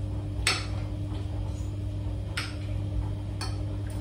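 Metal spoon and fork clinking against plates during a meal, about three separate clinks, over a steady low hum.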